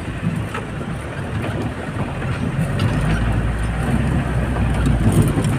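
Engine and road rumble heard from inside a moving vehicle, with a few faint rattles. The low rumble gets louder about three seconds in.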